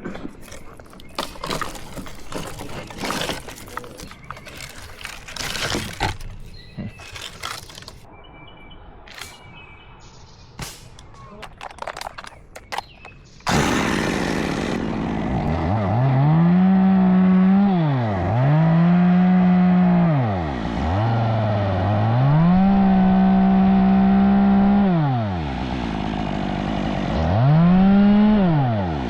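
Scattered clicks and knocks, then about halfway through a chainsaw starts suddenly and is revved up and down about five times, dropping to a low idle between revs, as a limb is cut.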